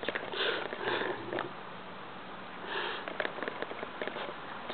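A small dog sniffing close up, short quick sniffs in bursts, several in the first second and again a little before three seconds in.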